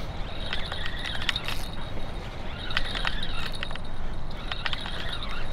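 Shimano Saragosa spinning reel clicking irregularly as a hooked striped bass pulls line off against the drag, over a steady low rush.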